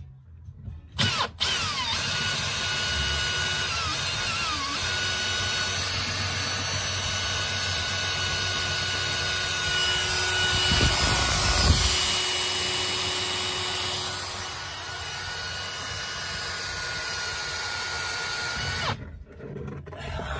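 Power drill running steadily for about 18 seconds, turning the drive screw of a 1948 Rolls-Royce Silver Wraith's privacy division window mechanism to raise the glass; it starts with a brief stutter, grows louder about halfway through, then eases off.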